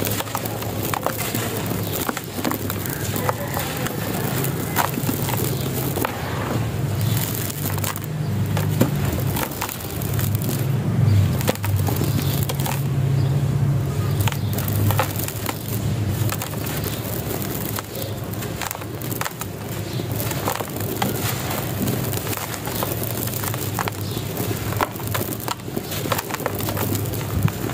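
Hands squeezing and crumbling clumps of dry, compacted sandy soil, a steady crunching and crackling as the clumps break and the grains and pieces fall onto loose dirt.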